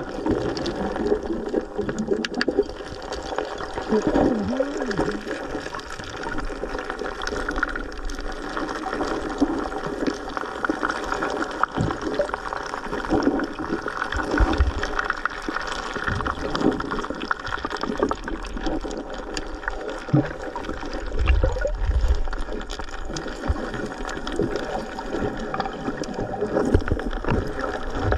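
Muffled gurgling and sloshing of water around a camera held underwater, with many small knocks and clicks throughout.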